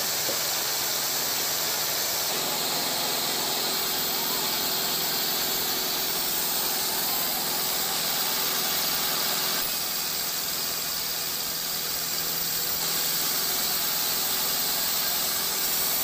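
Sawmill machinery running steadily: a continuous high-pitched hiss and squeal over a low machine hum, with no distinct knocks or impacts.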